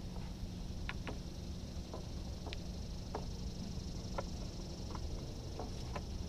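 Steady low rumble and a thin, steady high hiss, with about a dozen faint, irregular clicks.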